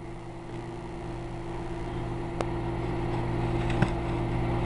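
Microwave oven running with a steady electrical hum that slowly grows louder, heating a bowl of beaten egg as it puffs up. Two short sharp clicks stand out, about two and a half and four seconds in.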